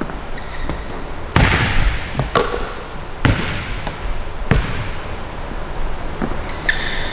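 A basketball bouncing hard on a gym floor, a string of sharp bounces about a second apart, each echoing around the large gymnasium.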